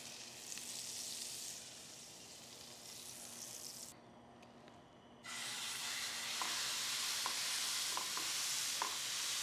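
Ground meat and onions sizzling in a very hot pan, left undisturbed to brown crisp on the bottom. The sizzle dips briefly about four seconds in, then comes back louder with scattered little pops.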